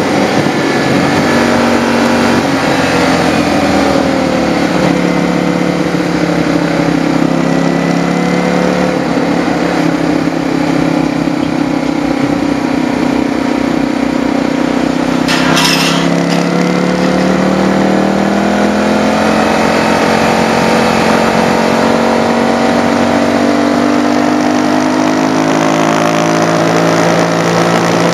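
Motorcycle engine heard from the rider's onboard camera, its pitch dropping and climbing several times as the throttle and gears change, under a steady rush of wind noise. A short hiss cuts in about halfway through.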